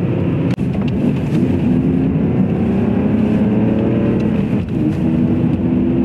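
BMW E46 coupe's engine running under way, with tyre and road noise, heard from inside the cabin. The engine note holds fairly steady, dipping briefly about half a second in and again near the end.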